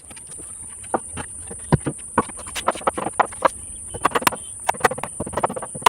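Irregular sharp clacks and knocks, several a second, over a steady high-pitched hiss.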